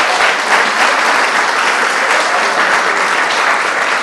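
Audience applauding: many people clapping together in a dense, even patter.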